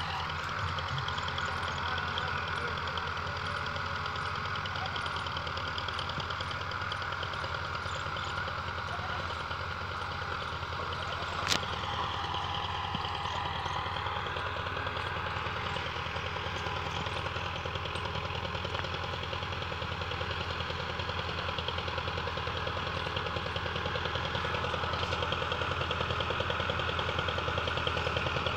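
Farm tractor's diesel engine running steadily with an even knocking pulse while it pulls a laser land leveller bucket, growing louder near the end. A single sharp click about twelve seconds in.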